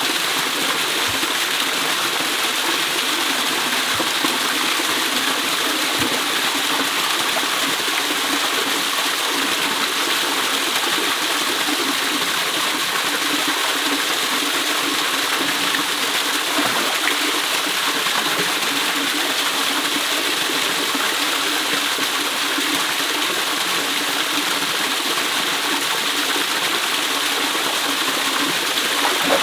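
Small waterfall pouring into a shallow rocky pool: a steady, unbroken rush of splashing water.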